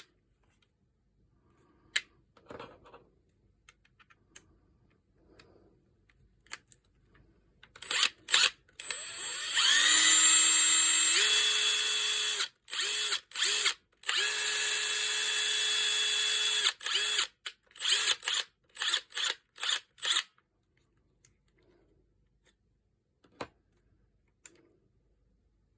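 Makita TD170D 18V cordless impact driver's motor running with no load under the trigger: a few short blips, then two runs of a few seconds each with a steady whine that steps up in pitch partway through the first, then a quick string of short trigger pulses. The driver had been pulled from use for a grinding noise.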